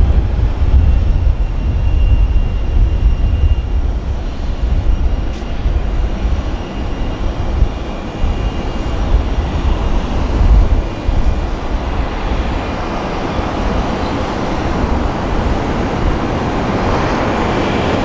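Airbus A350's Rolls-Royce Trent XWB turbofans running as the airliner rolls along the runway: a steady jet rumble and rush. The higher part of the noise grows louder over the last few seconds as the aircraft comes closer.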